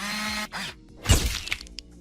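A half-second whirring burst, then about a second in a loud sharp hit with a ringing tail, over soft background music.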